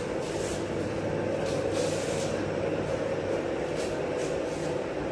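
Steady background noise with a faint hum and brief hissy surges now and then.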